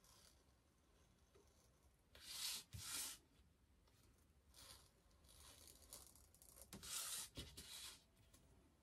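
A pen-style craft knife slicing through the ID holder's panel along the marked window lines, cutting out the window opening. A few short scratchy strokes, the loudest pair about two to three seconds in and another run around seven seconds in.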